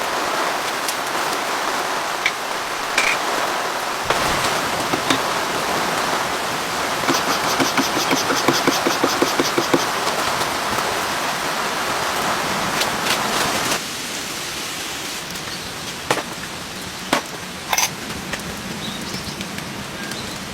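Steady rain falling, with scattered louder single drops striking a surface. A rapid run of ticks lasts a few seconds near the middle, and the rain turns quieter suddenly about two-thirds of the way through.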